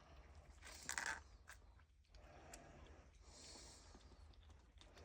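Faint rustling and scratching of hardwood pellet cat litter as kittens dig and play in it. There is a brief louder scrape about a second in and a few light clicks.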